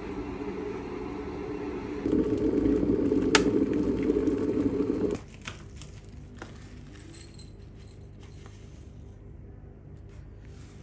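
A kettle heating water, a steady rumble that grows louder about two seconds in, with one sharp click a little later. It stops abruptly about halfway through, leaving a few faint rustles and small clicks as dried tea leaves are tipped into a stainless-steel tea infuser in a ceramic mug.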